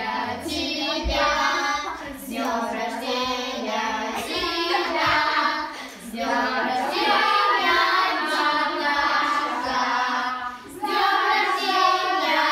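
A group of children and adults singing a birthday song together, with short breaks between lines.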